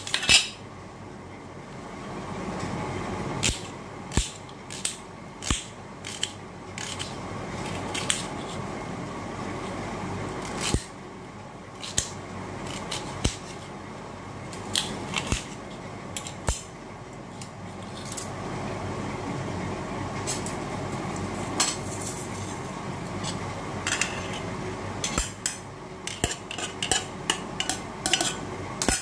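Knife blade clicking against a metal plate as a red onion is sliced and diced, in sharp, irregular strikes over a steady background noise. Near the end a spoon clinks quickly and repeatedly on steel dishes.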